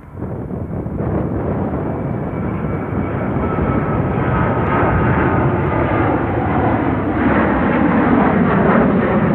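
Boeing 737-800 jet airliner's CFM56-7B turbofan engines, a loud rumble with a faint whine, growing steadily louder as the plane comes closer.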